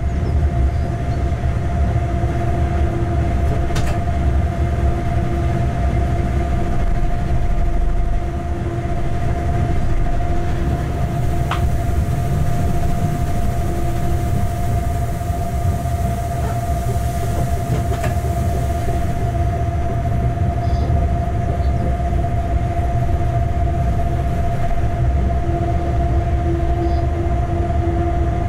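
Locomotive running light along the track: a steady low rumble of wheels on rail with a constant whine over it and a few faint clicks.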